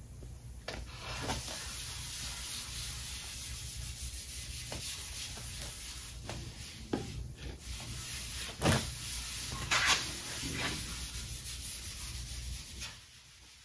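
Red Scotch-Brite pad scrubbing liquid metal prep into a galvanized sheet-metal cowl panel: a steady scratchy rubbing, with two louder scrapes about two thirds of the way in, stopping shortly before the end.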